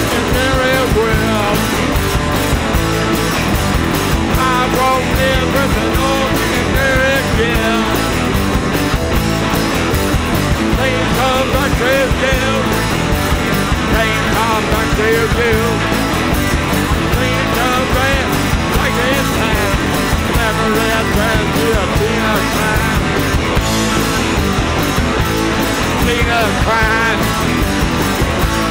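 Live rock band playing loud and steady: a singer over electric guitars and drums.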